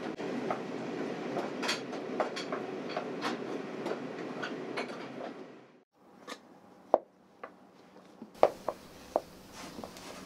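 A wooden spatula clicking against a wok while stir-frying over a gas burner, with a steady rush of cooking noise under it. After it cuts off suddenly, the spatula knocks and scrapes a few times against a metal rice-cooker pot as food is mixed.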